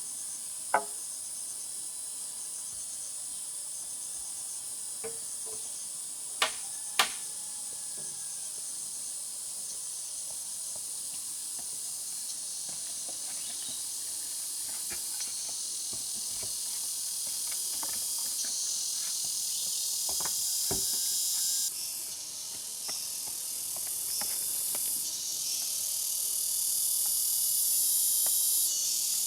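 Insects buzzing in a steady high-pitched chorus, with a few sharp knocks: one about a second in, two close together about seven seconds in, and one near 21 seconds.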